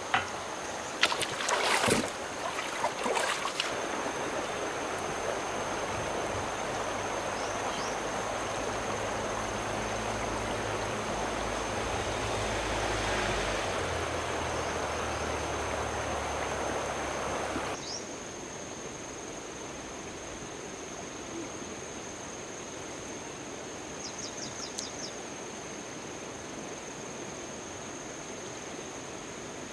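Running water, with a steady thin high-pitched whine throughout and a few sharp knocks about one to three seconds in. More than halfway through, the sound drops abruptly to a quieter wash.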